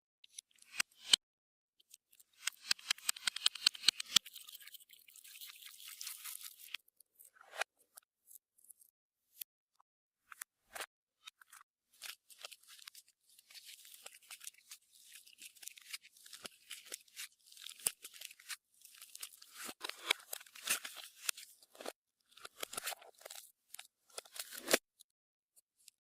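Clear slime being worked by hand: irregular runs of sticky crackling clicks and small pops, coming in bursts of several seconds with short gaps between.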